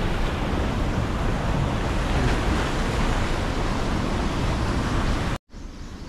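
Turbulent water pouring and churning into a concrete basin: a loud, steady rush that cuts off abruptly about five and a half seconds in, leaving only faint outdoor background.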